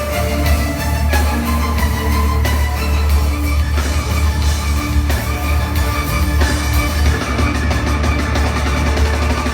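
Instrumental band music with drums, guitar and a heavy bass line.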